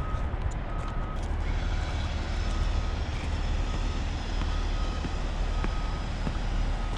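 Vehicle reversing alarm beeping at a steady pace over a constant low rumble of engines and heavy machinery from construction work.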